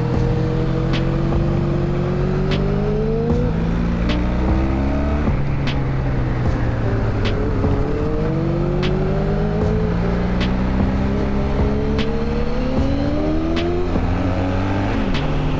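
Honda Magna cruiser's V4 engine pulling under way, its pitch climbing through the revs and dropping back at each upshift, several times over.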